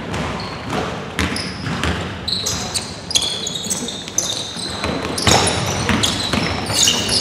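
Basketball game play: the ball bouncing on the court, with sneakers squeaking in short high chirps that come thicker in the second half.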